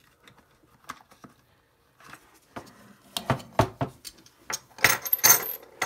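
Silver coins clinking as they are handled. Nearly quiet for the first two seconds, then a run of sharp metallic clinks, loudest about three and five seconds in.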